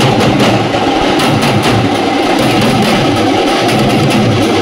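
A troupe of dappu (thappeta) frame drums beaten with sticks, playing a loud, dense, continuous rhythm.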